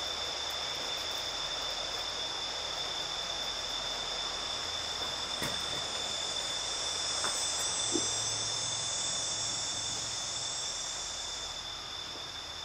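Crickets and other insects chirping in a steady, high-pitched chorus, with a couple of faint clicks partway through.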